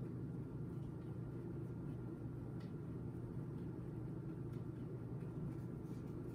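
Steady low room hum, with a few faint clicks and taps as a cup holder is fitted onto a walker.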